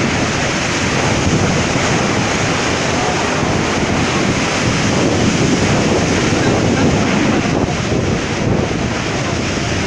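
Strong cyclone wind rushing and buffeting the microphone as a loud, steady noise.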